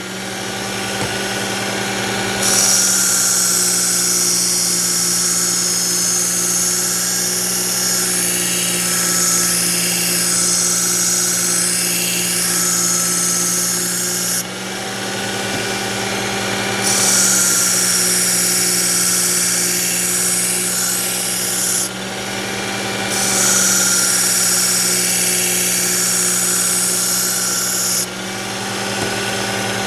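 Work Sharp belt knife sharpener running with a steady motor hum while a kitchen knife blade is drawn along its coarse 120-grit belt, each pass a long, high hissing grind, with short breaks between passes where only the motor is heard. This is coarse grinding at a 25-degree angle to take a nick out of the edge.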